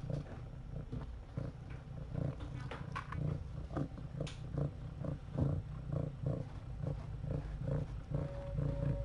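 Cat purring, a steady low rumble, under rhythmic licking strokes about two to three a second as a mother cat washes her kitten.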